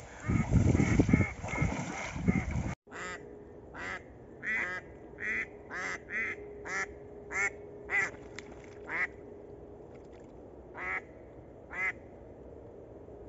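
Wading through shallow marsh water, with splashing and wind on the microphone, for the first three seconds. Then a live decoy duck quacks about a dozen times in short separate calls, spaced irregularly, calling to wild ducks.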